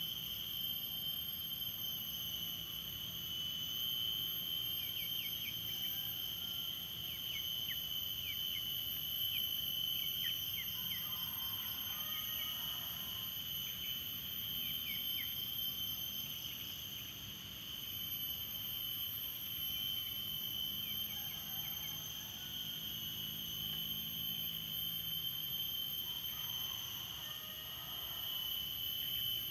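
Steady, high-pitched insect drone, with short falling chirps between about five and sixteen seconds in.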